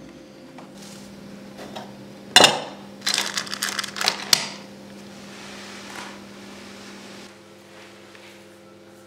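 Metal jewellery clattering in a tin box as a hand rummages through rings and ear plugs: one sharp clack, then a quick run of clicks and rattles lasting about a second and a half. A faint steady hum sits underneath and stops near the end.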